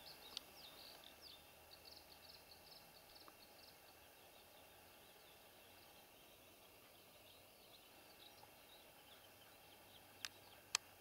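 Faint, quiet woodland ambience with a small bird's rapid, high twittering, busiest in the first few seconds and thinning out after. Two sharp clicks near the end.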